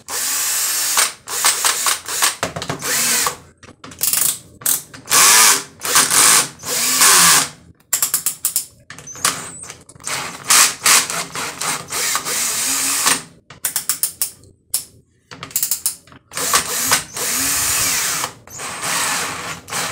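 Bosch cordless drill-driver, refitted with a lithium battery pack, run in repeated short trigger bursts: the motor spins up and stops again and again. Its torque clutch ratchets while the chuck is held by hand, testing its torque.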